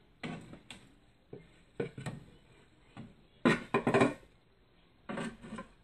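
Handling noises at a glass terrarium: a series of short knocks and clatters, with the loudest cluster a little past halfway.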